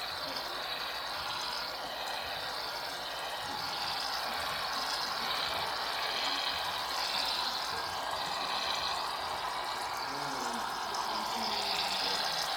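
Aerosol shaving cream can spraying foam in a long, steady hiss.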